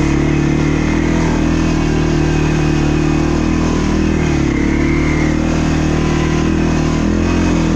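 ATV engine running steadily while riding a trail, its pitch dipping briefly about four and a half seconds in and again near the end as the throttle eases and picks back up.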